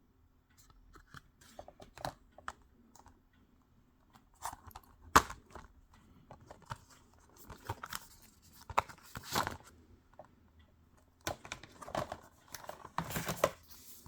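Blu-ray packaging being handled and unwrapped: plastic wrap crinkling and tearing in short bursts, with scattered clicks and taps from the cases, the sharpest click about five seconds in.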